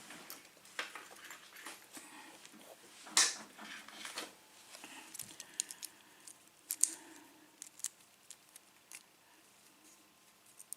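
Euro-profile cylinder lock being handled with metal tools: scattered small metallic clicks and scrapes as the cylinder is turned around and the stuck plug is worked at. The sharpest click comes about three seconds in, with a few more around seven seconds.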